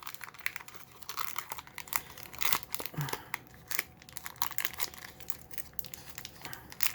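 A sealed paper baseball card pack wrapper crinkling and tearing in irregular crackles as it is worked open by hand. The pack is sealed tight and hard to open.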